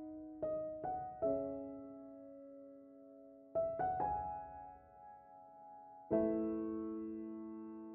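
Background music: slow, soft piano notes and chords, each struck and left to ring out and fade, with a fuller chord near the end.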